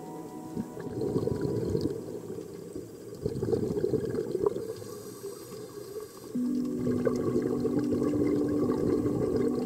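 Underwater sound picked up by a diving camera: irregular gurgling, rumbling surges of scuba divers' exhaled regulator bubbles. About six seconds in, a steady low hum starts and holds.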